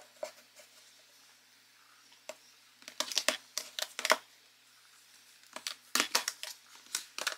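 Makeup palette compacts in metal and plastic cases being set down and slid into place on a tabletop: several clusters of short clicks and taps.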